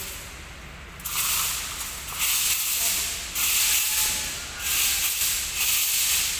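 Long steel rebars being dragged through a pile of other rebar, a hissing metal-on-metal scrape. It starts about a second in and comes in about five pulls, each a second or so long.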